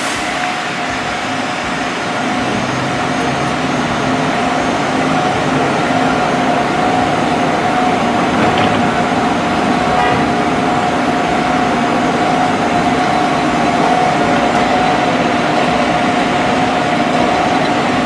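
Pierce aerial ladder fire truck running while parked, a steady engine drone with a constant high whine held throughout.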